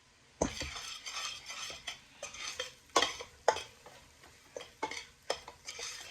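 A spoon stirring curry frying in oil in a pot, scraping and knocking against the pot at an irregular pace over a steady sizzle that starts about half a second in. The curry is being fried hard in the oil before the chicken goes in.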